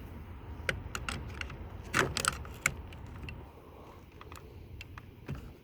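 Scattered small plastic clicks and scrapes as a small flat screwdriver is worked under the wiring connectors on a truck's door switch panel to pop them off. There is a quick cluster of clicks about two seconds in.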